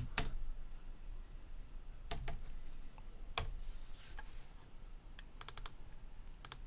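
Computer keyboard keystrokes and mouse clicks: a few separate clicks with gaps between them, then a quick run of clicks about five and a half seconds in.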